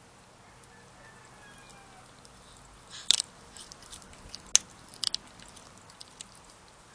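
A cat chewing a rat, with a handful of sharp crunches in the middle.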